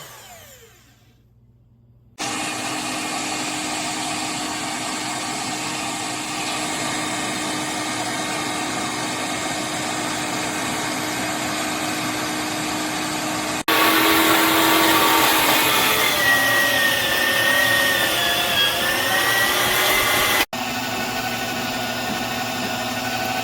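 LOVIMELA 2500W electric meat grinder motor winding down with a falling whine, then switched on again about two seconds in and running with a steady hum. Through the middle it runs louder, with a wavering pitch that dips, before settling back to the steady hum.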